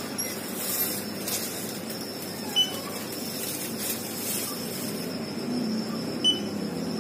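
Steady background noise with a faint high electronic whine, broken twice by a short high beep, the two beeps nearly four seconds apart.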